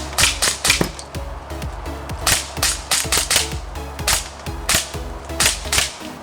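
Airsoft gun firing a string of single shots, about a dozen sharp cracks at an uneven pace, over background music.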